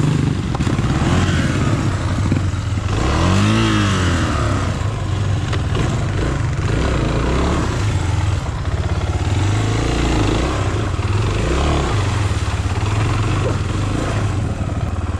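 Enduro motorcycle engine running as the bike is ridden off-road, its revs rising and falling once about three to four seconds in.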